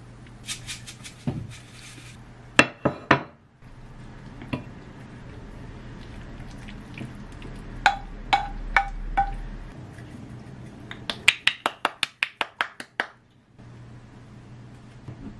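Kitchen handling sounds: a knife tapping and scraping chopped pickled radish into a ceramic bowl, ceramic dishes knocking and clinking as food is scraped onto a plate, then a quick run of about a dozen sharp clicks near the end.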